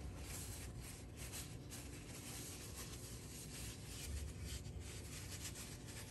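Faint rustling of a paper towel being folded and handled by hand.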